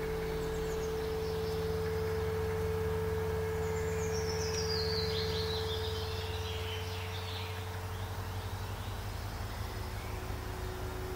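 Ambient drone of several steady, low held tones. A few seconds in, a high twittering trill falls in pitch over about three seconds.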